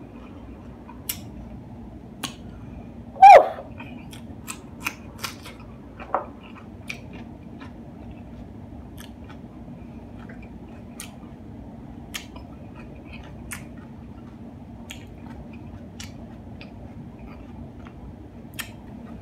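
Close-up chewing of crisp hard-shell tacos: scattered sharp crunches, thickest in the first few seconds, then thinning out to occasional ones. One short, louder falling sound comes about three seconds in.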